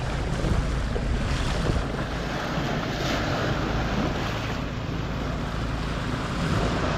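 Bow wave rushing and splashing along a sailboat's hull while under motor, with the boat's engine droning steadily underneath and wind buffeting the microphone.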